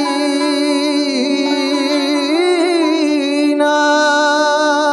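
Andalusi sacred music played live by a small ensemble: a held melody line with vibrato and ornamented turns over a steady drone.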